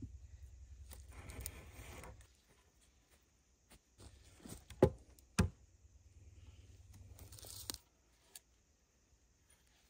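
Branches and brush being handled: rustling and scraping, with two sharp cracks about half a second apart near the middle.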